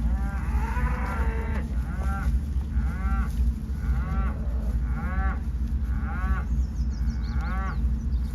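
A farm animal calling over and over, about eight short calls that rise and fall in pitch, roughly one a second, over a steady low rumble.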